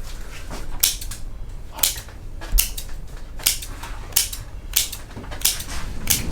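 Cutters snipping the fiber optic strands of a starlight ceiling, trimming them to length: about eight sharp snips, roughly one every three-quarters of a second.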